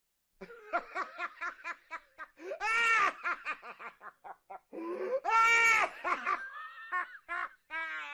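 Loud, exaggerated laughter: a run of quick 'ha-ha' bursts, then two long drawn-out cries, the second the loudest, about three and five seconds in.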